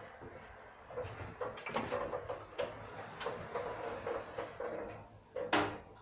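KONE lift's automatic sliding doors moving with a clatter of short rattles and knocks, a faint high whine in the middle, and one sharp loud knock near the end.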